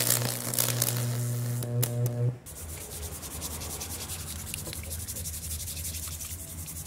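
Lichtenberg machine's high-voltage probes arcing through wood, a loud steady electrical hum with crackling, for about the first two seconds. This then gives way to a stiff brush scrubbing the charred wood under running hose water, in quick rubbing strokes.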